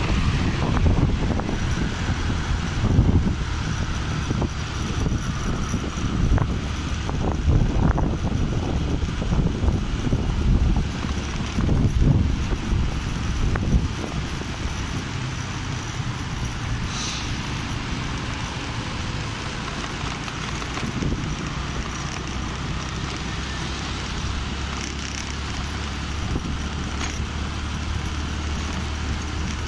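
Motorcycle riding at speed: wind buffeting the microphone over the engine's steady hum and the tyres' road noise. The gusts are heavy and uneven at first and ease to a steadier rush about halfway through.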